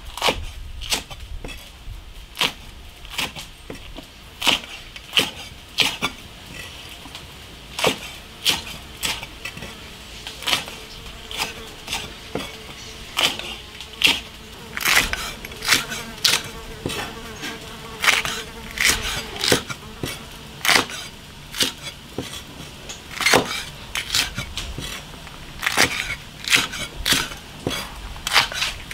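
Kitchen knife chopping local chili peppers on a cutting board: sharp, irregular strikes, about one or two a second. A faint buzzing hum runs underneath in the middle stretch.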